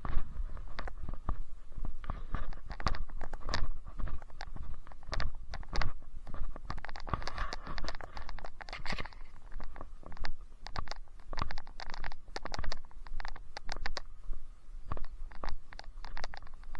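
Footsteps on a trail, an irregular run of crunching steps and scrapes, with rubbing and handling noise on a hand-held camera's microphone.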